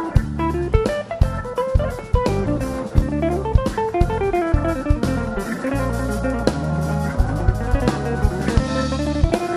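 Live instrumental band playing: guitar carrying a melody of quick notes stepping up and down, over electric bass and drum kit.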